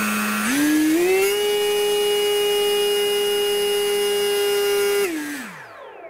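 Model aeroplane's electric motor and propeller run up from mid throttle to full throttle, the whine rising in two quick steps about half a second in. It holds steady at about 12,300 RPM, then spins down with a falling pitch about five seconds in as the throttle is cut.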